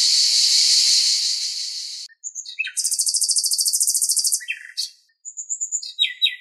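Cicadas buzzing in a dense, steady drone that fades out about two seconds in, followed by a common nightingale singing: a few short notes, a rapid trill lasting about a second and a half, then more varied phrases of repeated notes.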